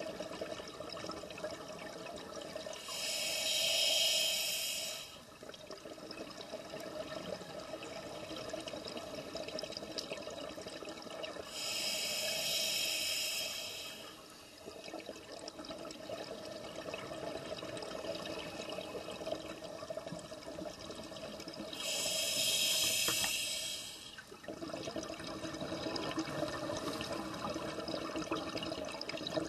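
A scuba diver's regulator underwater: three long inhalation hisses about ten seconds apart, with exhaled bubbles gurgling between them and a fourth hiss starting at the very end.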